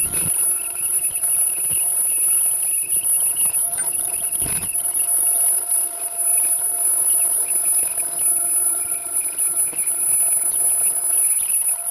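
Lathe running while plain-turning a steel tool joint, with a steady high whine and several constant tones.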